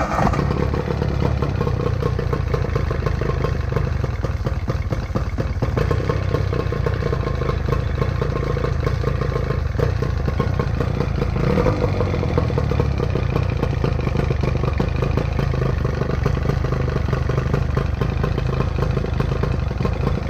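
A 1985 Evinrude two-stroke outboard motor running steadily, out of the water and with no fuel tank hooked up, on the fuel left in it. Cooling water streams from the lower unit, a sign that the repaired water pump is working.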